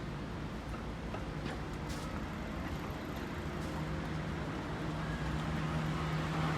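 A steady low mechanical hum at a constant pitch that grows stronger about halfway through.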